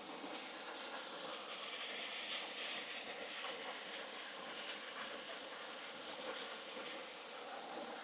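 Small waterfall cascading over rocks, a steady rush of falling and splashing water.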